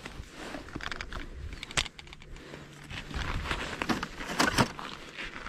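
Close handling noise from a plastic ice-fishing tip-up: rustling and light plastic clicks as it is turned in the hands. There is a sharper click about two seconds in and a quick run of clicks a little past the middle.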